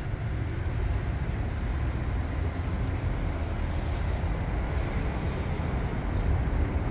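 Steady low rumble of city street ambience, with no single distinct event standing out.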